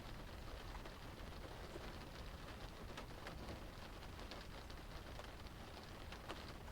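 Rain drumming on a car's roof and windows, heard from inside the cabin: a steady patter of many small drop ticks over a low rumble.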